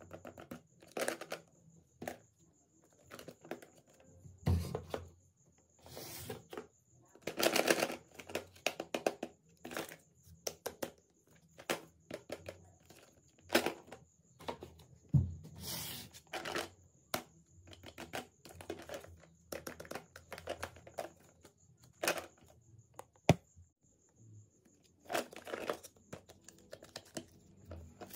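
Hands handling hard plastic Hello Kitty handbag-shaped toy cases: irregular taps and clicks on the plastic, with bursts of crinkling from the plastic film and card packaging. A faint steady high whine sits underneath.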